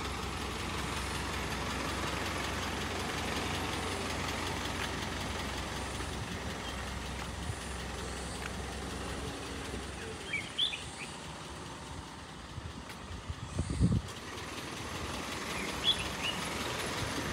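Outdoor background noise with a steady low hum that fades out about halfway through. A few short bird chirps come in the second half, with a single dull thump a few seconds before the end.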